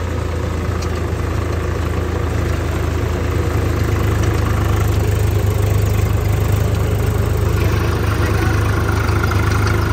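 Diesel tractor engine running steadily, heard from the driver's seat, with a strong low hum.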